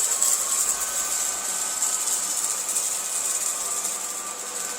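Cordless vacuum cleaner running steadily, a continuous high-pitched suction hiss with a faint motor whine, easing slightly in loudness toward the end.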